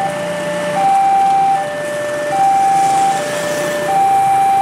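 Railway level-crossing warning alarm sounding a steady two-tone alternation, a higher tone and a lower tone each held just under a second, warning that a train is approaching and the crossing is closing.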